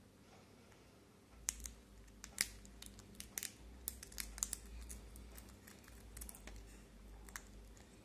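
Quaker parrot cracking and husking a sunflower seed in its beak: a run of irregular sharp clicks and cracks that starts about a second and a half in.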